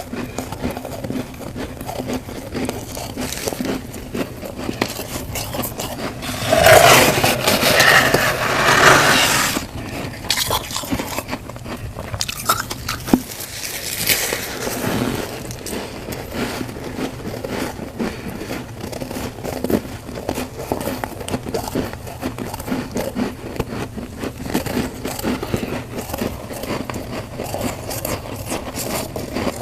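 Humidifier frost being crunched and scraped close to the microphone: continuous crackling, with a louder scraping crunch lasting about three seconds, starting roughly seven seconds in.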